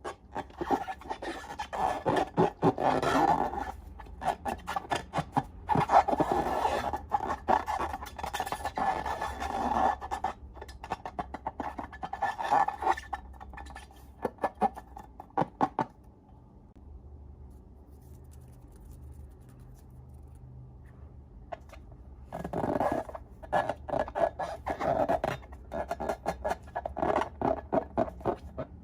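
Sticky slime being squeezed and worked by hand, giving runs of wet crackling clicks and pops in bursts. The crackling stops for several seconds past the middle, then starts again.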